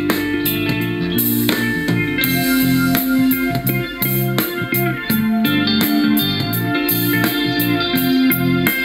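Instrumental music with guitar played as a test track on a Bluedio AS-BT portable Bluetooth speaker. The reviewer judges its reproduction clear, with weak, unpunchy bass and somewhat high sibilance.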